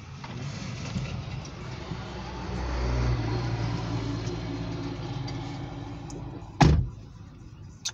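Dump truck engine passing close by, heard from inside a car: a low rumble that swells to its loudest around three seconds in and then fades. A sharp thump about six and a half seconds in is the loudest sound.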